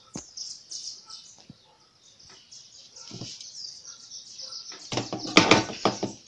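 Small birds chirping throughout, with a few light knocks. Near the end comes a short loud clatter as metal cans and a plastic bottle are knocked and grabbed on a wooden table.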